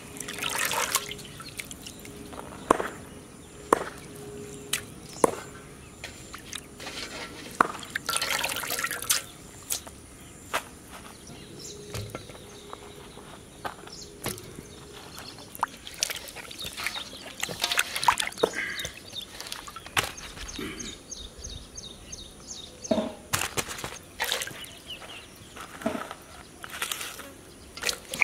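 Water splashing and trickling in a large aluminium basin as fresh herbs, tomatoes and green chillies are washed by hand, with scattered sharp knocks of produce and hands against the metal.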